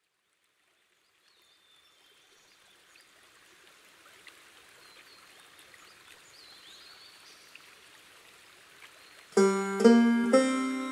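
A faint background hiss slowly swells from silence, with a few faint high chirps in it. About nine seconds in, a clawhammer banjo starts playing loudly, each struck note ringing out and fading.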